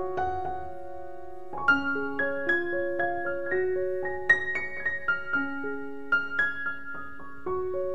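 Background piano music: a slow, gentle melody of single struck notes that ring and fade, with one long held note near the start.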